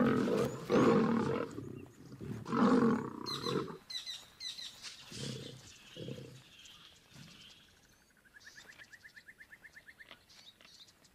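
Two male lions fighting, giving loud growls in several bursts over the first four seconds, then a few quieter growls around the middle.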